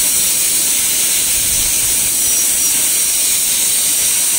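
High-speed air-turbine dental handpiece running with water spray, its bur cutting the incisal edge of a model central incisor during a porcelain jacket crown preparation: a steady high-pitched whine with hiss.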